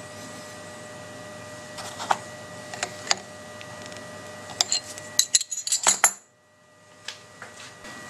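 Open-ended spanners clinking against the steel collet nut and spindle of a CNC router as an ER11 collet holding a 4 mm end mill is tightened. There are scattered sharp metal clicks, thickest around five to six seconds in, over a steady hum, and the sound drops away abruptly just after six seconds.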